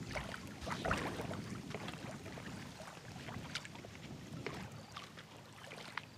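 Soft footsteps and shoe scuffs on bare rock, a little louder in the first second, over a steady wash of river water lapping against the rocky shore.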